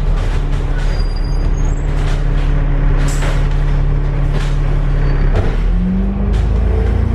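Cummins ISLe 340 diesel engine of an Alexander Dennis Enviro 500 MMC double-decker bus, heard from inside the lower deck, running under way with a steady drone. A brief hiss about three seconds in; about five and a half seconds in the engine note dips and then climbs again at a gear change of the ZF six-speed automatic gearbox.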